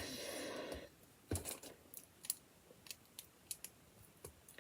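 Plastic LEGO bricks being handled and pressed together: a soft rustle at first, then a few faint, scattered clicks and taps.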